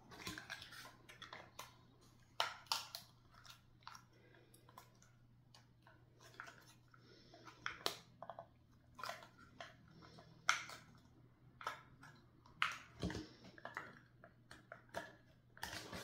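Thin wooden pieces of a small craft birdhouse being handled and pressed into place, giving irregular light clicks and taps over a faint steady hum.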